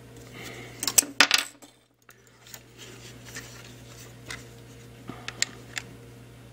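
Sharp clicks and metallic clinks from taking the battery out of a wireless mouse's plastic battery compartment, a close cluster about a second in, followed after a short gap by lighter scattered taps and clicks of handling the mouse case.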